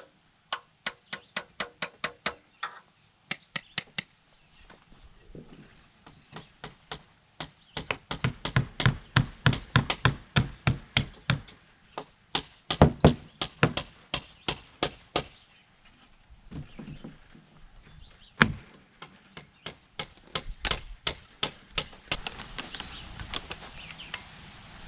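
Hammer striking a wooden plank door: quick runs of blows, about three or four a second, broken by short pauses, with one single hard blow about two-thirds of the way through.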